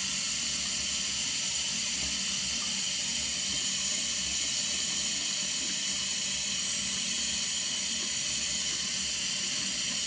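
Tap water running steadily into a sink basin and splashing toward the drain.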